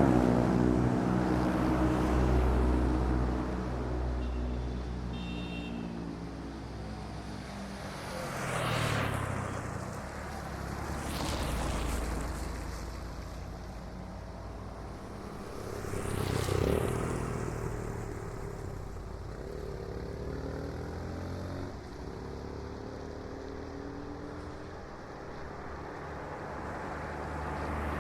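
Motorcycles riding past: a loud engine note that fades away at the start, then three quick close pass-bys, each swelling and falling away, with engine sound running between them.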